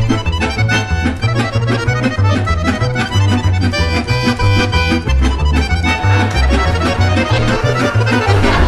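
Instrumental music with a steady beat and a pulsing bass line.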